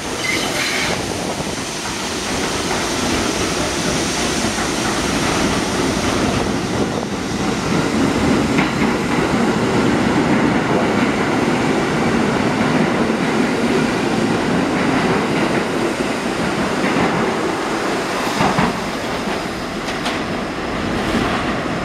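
R68-series New York City subway train running along elevated track: a steady rumble of steel wheels on rail with clicks over the joints, loudest about midway as the cars pass close by.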